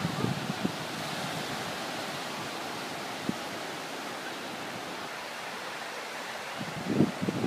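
Small ocean waves breaking and washing up a sandy beach, a steady hiss of surf. A few brief low thumps of wind on the microphone, and stronger wind buffeting the microphone near the end.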